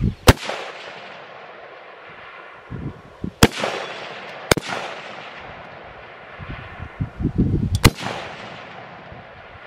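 Four rifle shots from service rifles, two shooters each firing a two-shot string, each crack echoing and fading over a second or more. The shots come about a second in, twice close together in the middle, and once near the end.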